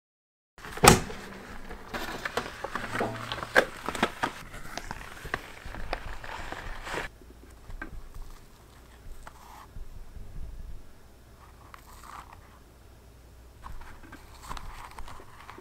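Handling sounds from baked madeleines being worked out of a flexible silicone mould onto a wire cooling rack. A sharp click comes about a second in, then a busy run of clicks and rustles for several seconds, then quieter, scattered handling noises.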